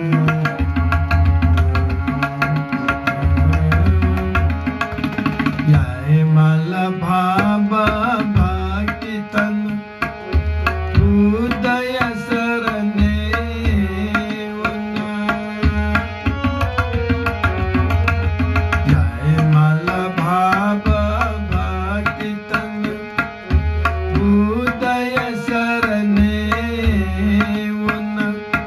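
Tabla playing a steady rhythm alongside a harmonium holding sustained notes, with a man's voice singing over them from about seven seconds in.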